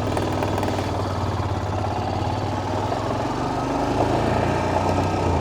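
Royal Enfield Himalayan's single-cylinder engine running steadily, growing a little louder about three seconds in.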